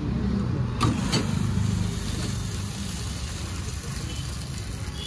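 Two sharp taps about a third of a second apart, an egg being cracked on the edge of a flat iron tawa, over a steady low rumble.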